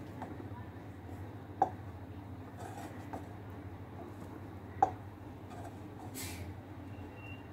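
A spatula stirring thick milk-and-rice pudding in a small saucepan, knocking sharply against the pan twice, about a second and a half and about five seconds in, with fainter taps between. A steady low hum runs underneath, and there is a brief hiss about six seconds in.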